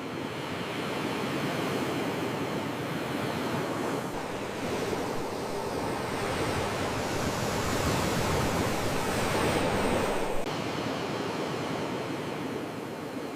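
Sea waves washing onto the shore, a steady rushing noise that swells over several seconds and drops off suddenly about ten seconds in.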